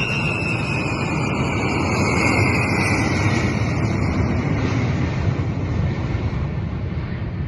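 Aircraft engine noise as a plane passes, a loud steady roar with a high whine that slowly falls in pitch over the first few seconds.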